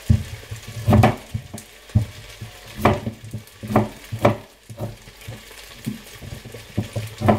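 Chef's knife cutting through broccoli stalks and knocking on a plastic cutting board, about five sharp knocks at uneven intervals, over a steady sizzle of onions and potatoes frying in a pan.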